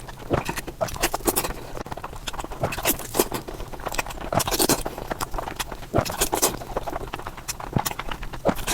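Fast, wet chewing and smacking while eating pork: irregular clicks and smacks, several a second.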